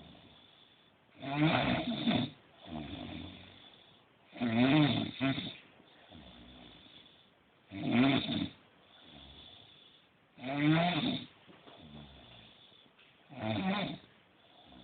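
A sleeping person snoring in a steady rhythm: five loud snores about every three seconds, each followed by a softer breath.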